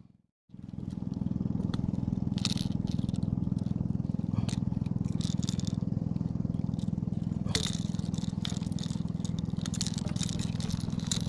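A boat's engine running steadily under the deck, with scattered metallic clicks and scrapes of fishing pliers and a hard-plastic lure against the wooden deck as a hook is worked free. The sound drops out for a moment near the start.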